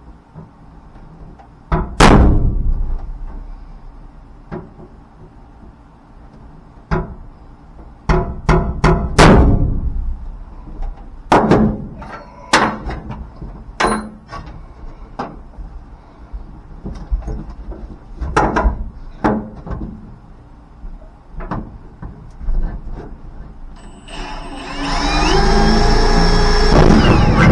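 A series of sharp knocks and clanks as metal parts and hand tools are handled and bumped during fitting. Near the end comes a louder, steady sound with shifting tones, lasting about three seconds.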